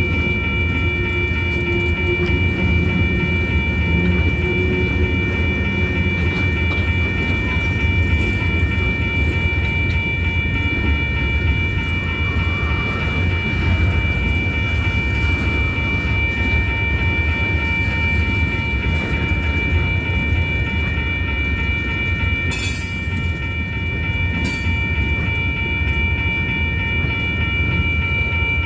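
Freight train of coil cars rolling past with a steady low rumble, and a constant high ringing tone over it throughout. Near the end come two short hisses about two seconds apart.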